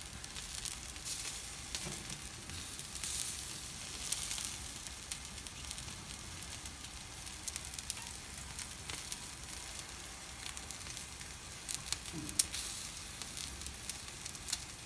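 Chicken yakitori skewers sizzling over the glowing charcoal of a commercial gas-and-charcoal grill, with a steady hiss and many small sharp crackles and pops from the cooking fat. A burst of louder pops comes about twelve seconds in.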